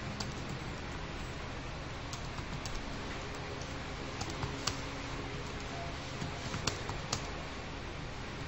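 Computer keyboard typing: scattered, irregular keystrokes, a few sharper clacks among them, over a steady background hiss and low hum.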